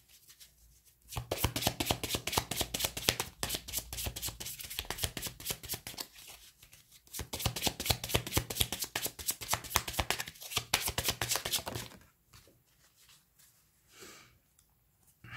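A deck of oracle cards being shuffled by hand: a fast run of papery clicks starting about a second in, with a short let-up about six seconds in, then stopping near twelve seconds.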